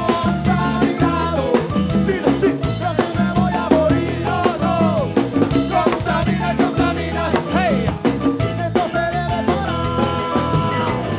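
Rock band playing live: drum kit and bass keep a driving beat under a melodic lead line, with one long held note near the end.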